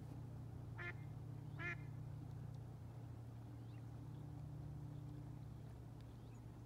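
A waterbird gives two short calls about a second apart, over a steady low hum.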